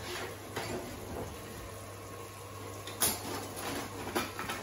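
Kitchen cooking noise: a steady low hum under light clatter of cookware, with a sharp clack about three seconds in and a softer knock about a second later.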